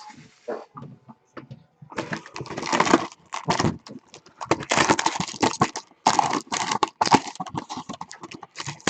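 Rustling and crinkling of packaging as a box of trading card packs is opened and handled, in dense bursts after a quiet start.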